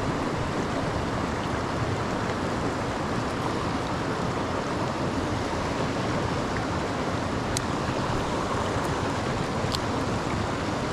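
Mountain stream water rushing steadily over rocks, with a couple of faint ticks in the second half.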